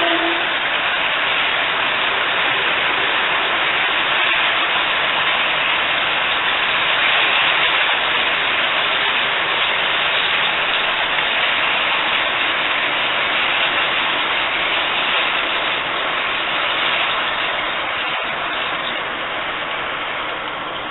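MTH model passenger train running over a trestle: a steady hiss of wheels rolling on track, getting a little quieter over the last few seconds as the train moves off.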